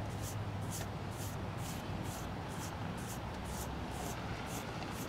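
Paintbrush swishing acrylic paint onto a PVC pipe bow, in quick back-and-forth strokes about two a second, over a steady low hum.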